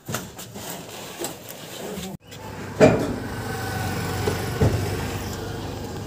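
Knocks and bumps from a refrigerator being handled and unloaded from a goods vehicle. There is a sharp bang about three seconds in, then a steady low hum with another knock or two.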